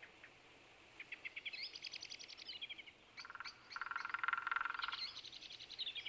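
Songbirds singing: a fast trilled phrase of high notes about a second in and another near the end, with a lower, buzzing trill in the middle that is the loudest part.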